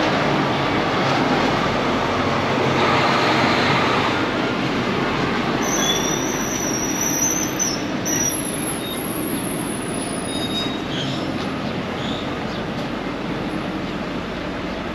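Steady rumble and rush of a moving public-transit vehicle heard from inside, with a high-pitched squeal for a few seconds around the middle.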